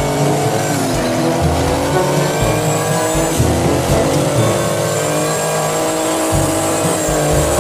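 A drag-racing school bus's engine held at high revs through a tyre-smoking burnout, with tyres squealing against the track.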